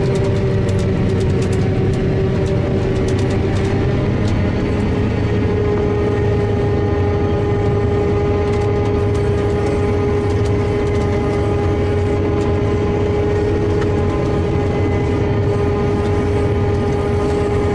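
A self-propelled forage harvester (corn chopper) running steadily as it cuts and chops standing corn, heard from inside the cab. It is a loud, even drone with a steady whine over it and some light crackling in the first few seconds.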